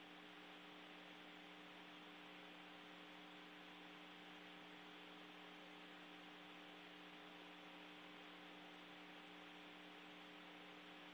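Near silence: a faint, steady hum of several constant tones over a light hiss.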